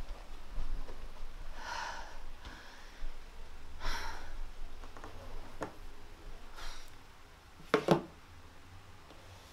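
A woman breathing hard in distress, with several gasping breaths a couple of seconds apart and a louder short, sharp sound near the end.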